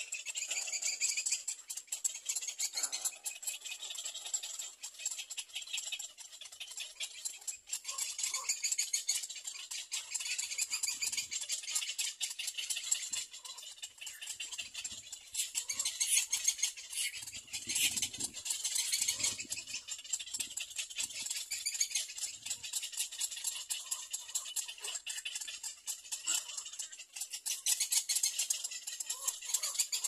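A continuous, high-pitched rattling chorus of wild animals, swelling and fading in strength.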